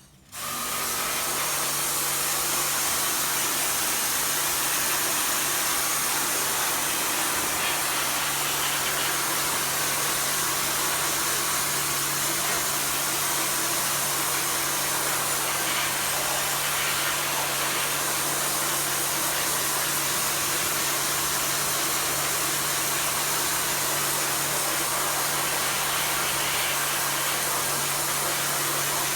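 High-pressure washer spraying water through an air conditioner's interior: a steady hiss of spray over the constant hum of the washer's pump motor, starting about half a second in.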